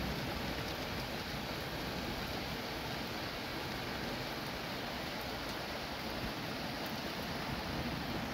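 Floodwater rushing across a street after a cloudburst, a steady unbroken noise.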